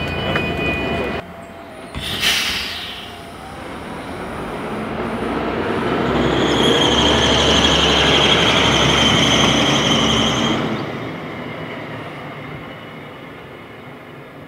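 A large vehicle's drivetrain builds to a steady high whine over a low rumble, holds for a few seconds, then cuts off about eleven seconds in and fades away. A short burst of noise comes about two seconds in.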